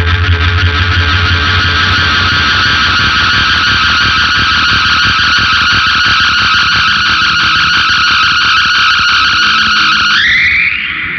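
SG electric guitar through a Big Muff fuzz and an MXR Analog Delay with a little reverb, holding one long fuzzed note that sustains steadily and slides up in pitch near the end.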